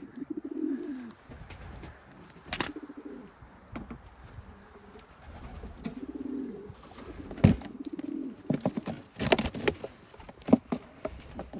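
Domestic pigeons cooing, low throaty coos lasting about a second each, repeated several times. Sharp knocks and clatter break in, the loudest about seven and a half seconds in, with a cluster near the end.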